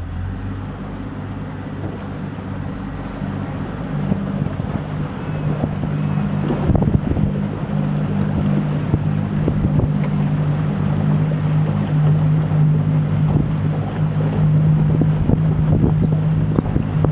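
Small fishing boat's engine running under way, picking up speed and getting louder about four seconds in, with wind buffeting the microphone.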